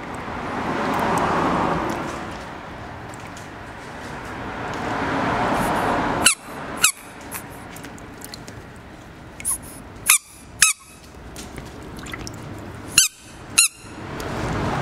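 Water sloshing and swishing as hands move through a pool of floating rubber yo-yo balls, swelling twice, then three pairs of short, high squeaks, each pair about half a second apart.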